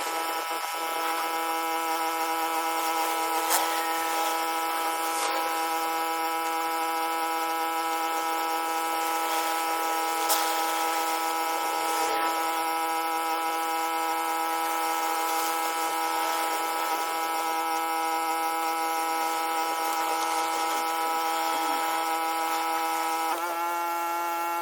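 Pressure washer running steadily with a constant high-pitched whine, its surface cleaner working the sandstone paving. The pitch shifts slightly about a second before the end.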